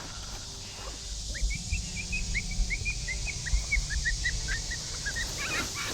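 A rapid run of short, high animal chirps, about five a second, slowly falling in pitch, over a steady high hiss.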